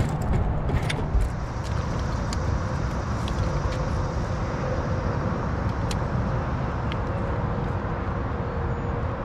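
A small motor running steadily: a low rumble with a faint steady hum that stops near the end, with a few light clicks in the first seconds.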